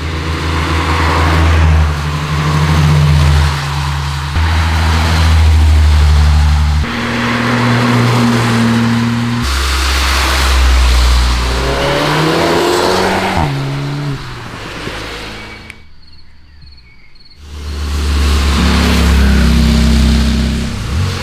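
Cars driving past one after another on a wet road: steady engine notes with the hiss of tyres on wet tarmac, the sound changing abruptly from car to car. About two-thirds through, an engine revs up and down in pitch, and near the end the sound drops out briefly before another car comes through.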